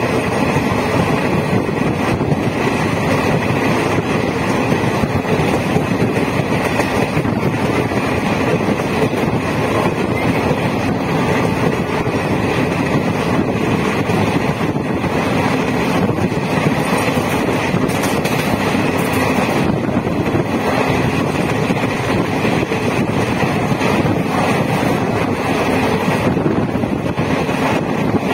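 Diesel electric multiple unit (DEMU) passenger train running, heard from on board: a steady, loud rumble of engine and wheels, with wind noise on the microphone.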